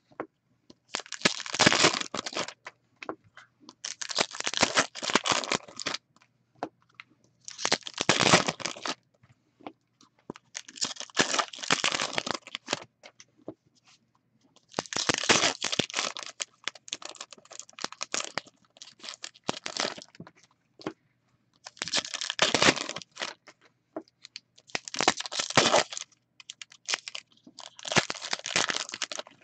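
Hockey card packaging being torn and crinkled by hand, in about nine rustling bursts of a second or two each, a few seconds apart, with small clicks and taps between them.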